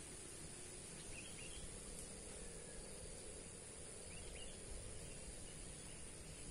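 Faint short bird chirps in two small clusters, about a second in and again around four seconds in, over a steady outdoor background hiss.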